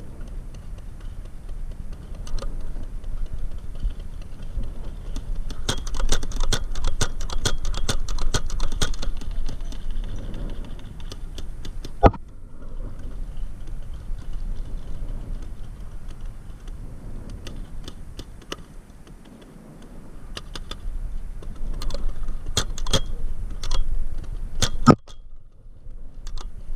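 Sharp clicks and rattles of paintball play, with a dense run of rapid clicks several seconds in, a single sharp crack about halfway, and another cluster of clicks near the end, over a low rumble.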